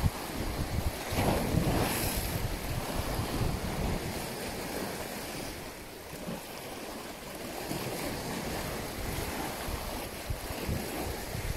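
Sea waves washing, with wind buffeting the microphone; louder for a couple of seconds about a second in.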